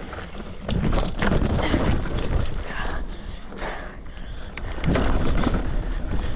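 Wind buffeting the microphone over rumbling and rattling from a mountain bike on a dirt trail, with a few sharp clicks about four and a half seconds in.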